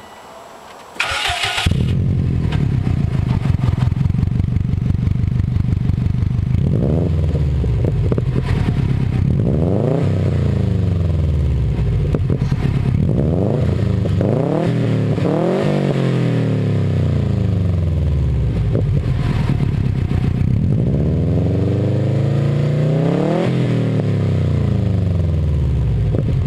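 A 2005 Subaru WRX's turbocharged flat-four heard at the tip of its Agency Power turbo-back exhaust. About a second in the starter cranks and the engine catches and settles into a loud idle. From about seven seconds on it is blipped repeatedly in short revs that rise and fall, with one longer, higher rev a little after twenty seconds before it drops back to idle.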